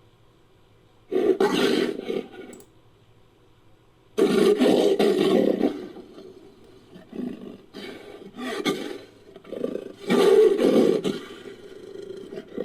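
Designed creature roars for a fictional hammerhead-shark monster, built from big-cat recordings. There are three loud roars, about a second in, at about four seconds and near ten seconds, with lower growls between the second and third.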